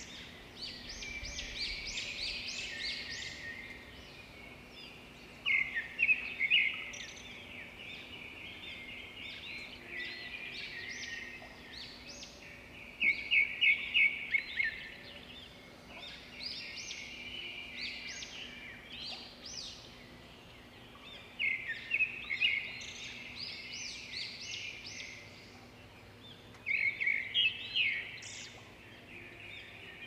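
A flock of budgerigars chirping and chattering continuously, with louder bursts of rapid calls every several seconds.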